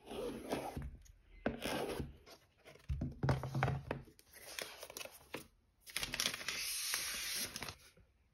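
Packaging being unwrapped and handled: paper or plastic tearing and crinkling in several short passages, with a few knocks and a longer steady rustle of nearly two seconds near the end.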